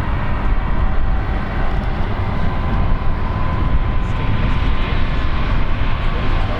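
Jet engines of an Airbus A321neo airliner running, a steady rushing noise with a faint steady whine.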